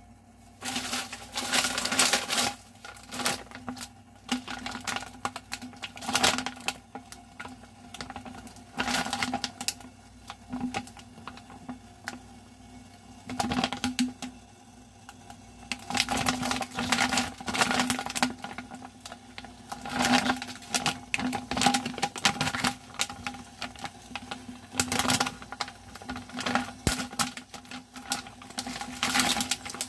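Plastic packaging of a bag of frozen mandu crinkling in irregular bursts as it is handled and opened, over a faint steady hum.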